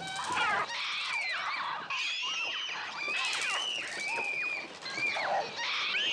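A flock of attacking gulls shrieking: many overlapping cries that swoop and fall in pitch, one after another. In this film the gull cries are electronically made on a Mixtur-Trautonium.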